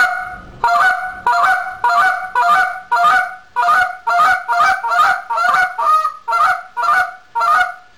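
Goose call blown in a steady run of double clucks: about fifteen short, sharp notes, roughly two a second, each one breaking in pitch.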